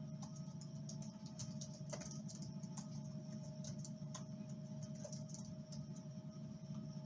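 Typing on a computer keyboard: irregular, quick keystroke clicks, over a steady low hum in the room.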